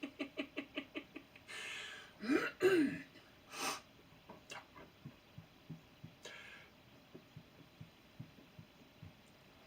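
A man laughing in a quick run of short breathy bursts, then a breath, a short voiced sound that rises and falls in pitch, and a sharp exhale. After that only faint, irregular low pops.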